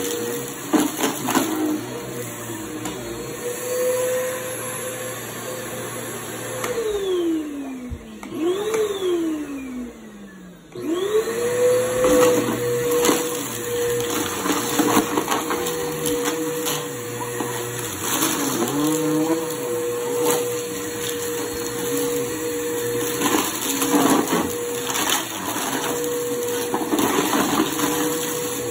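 Bissell bagless upright vacuum cleaner running on a shag rug. About seven seconds in, its motor winds down, picks up briefly, then winds down almost to a stop. It spins back up at about eleven seconds and runs steadily again, with occasional rattles of debris being picked up.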